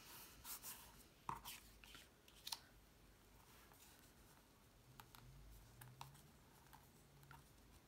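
Near silence with faint rustles and a few soft taps as cardstock pieces are pressed and smoothed down by hand on a cutting mat. The clearest taps come in the first three seconds.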